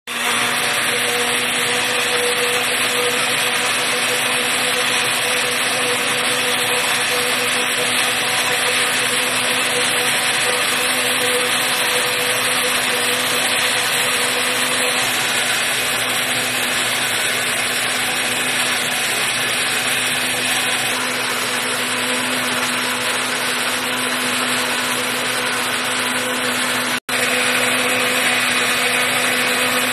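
Simplus electric blender running steadily at one speed, its motor humming evenly as it blends mango into juice. The sound cuts out for an instant near the end, then carries on the same.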